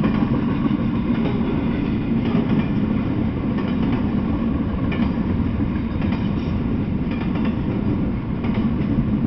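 Double-stack intermodal freight train rolling past: a steady, continuous rumble of the container well cars, with scattered clicks of wheels crossing rail joints.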